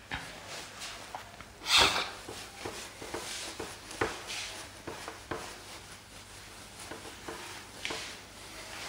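A bare hand wiping marker writing off a whiteboard: a series of short rubbing swishes, with a louder one about two seconds in.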